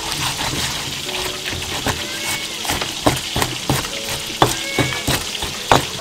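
Stone pestle pounding and mashing a wet seasoned herb paste in a stone mortar: irregular dull thuds about two a second.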